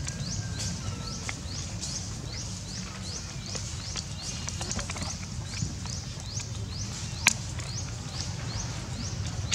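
A steady run of short, high, rising chirps from a calling animal, a little over two a second, over a low steady rumble. One sharp click about seven seconds in.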